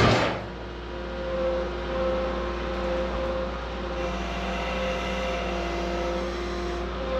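Kato compact track loader's diesel engine running steadily while the loader backs away, its pitch shifting a little. At the very start, a brief thump as the log is set down on the sawmill bed.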